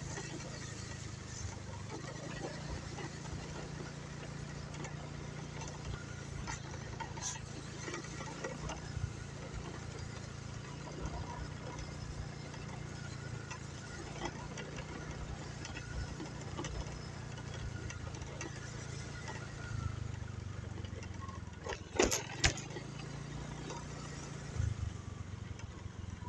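Small motorcycle engine running steadily at low speed while riding. Near the end come two sharp knocks in quick succession.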